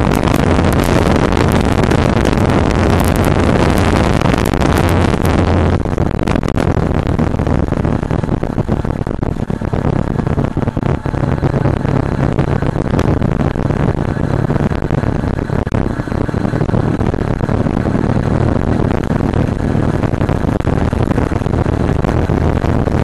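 Yamaha R15's single-cylinder engine running steadily at highway speed, with wind rushing over the bike-mounted camera's microphone; the wind is heaviest for the first six seconds or so, then eases.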